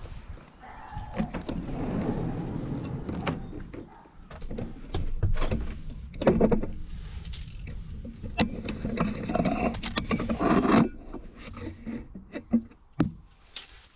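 A VW Transporter's sliding side door being handled, with irregular clunks and knocks and stretches of rustling. The sharpest knock comes about six seconds in, and a longer rolling, scraping stretch ends abruptly near eleven seconds.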